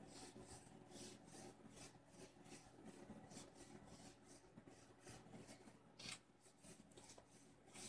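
Near silence with faint rubbing and rustling handling sounds, a few soft scrapes a second and a slightly louder one about six seconds in.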